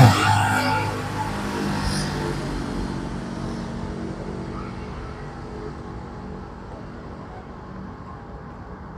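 A motor vehicle passing close by, loudest at the start, its engine hum fading away over several seconds.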